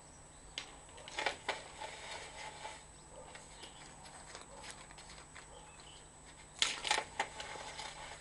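Scattered clicks and knocks from the drain-survey camera and its push rod being handled and hauled back through the pipe: a few about a second in and a close cluster near the end, over a faint steady whine from the equipment.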